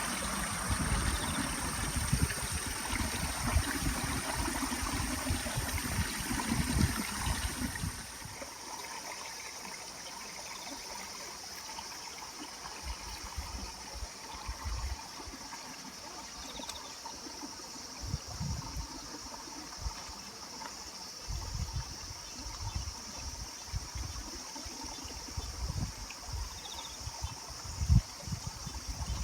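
Running water trickling and splashing steadily, with irregular low thumps. It drops to a quieter level about eight seconds in.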